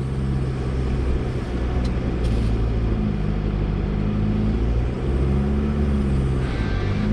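Chevy Colorado ZR2 Bison pickup's engine running steadily at low speed on a dirt course, its pitch rising and falling gently a couple of times, with a constant rumble of tyres and body over the ground.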